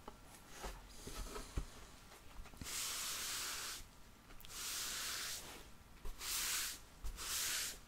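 Close-miked whispering in four short breathy phrases in the second half, each under a second, with a few faint soft clicks before them.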